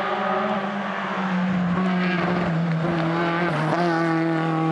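Alpine A110 race car's engine at high revs through a hairpin. The pitch holds and sags slightly, dips briefly a little over three seconds in as the driver shifts or lifts, then rises steadily as the car accelerates away.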